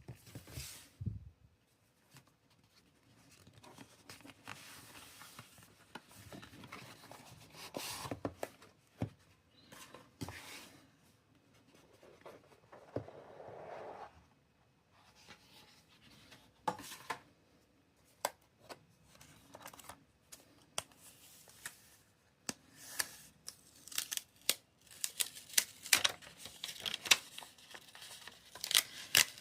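A smartphone box being unpacked: its seal and wrapping torn and rubbed, with a run of sharp clicks and taps that grows denser towards the end.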